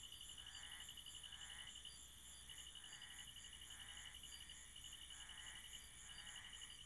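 Near silence: faint background hiss with a soft, regular pulse about twice a second.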